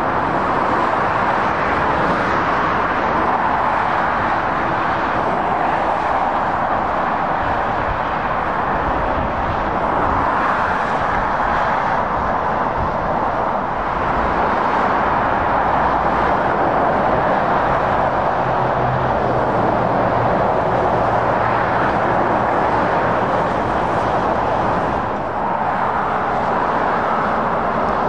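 Steady roar of heavy motorway traffic, mostly tyre noise from cars and lorries passing at speed. A low lorry engine drone stands out for a few seconds past the middle.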